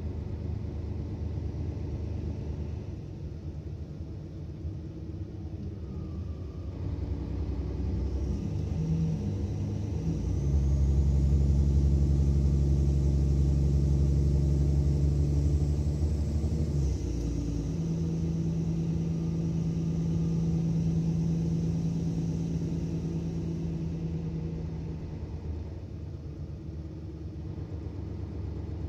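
Mercedes-Benz Citaro O530 bus's diesel engine heard from inside the bus, building up to a loud drone as the bus accelerates hard under kickdown. A little past halfway the note changes abruptly at a gear change of the ZF automatic gearbox, and the engine eases off near the end.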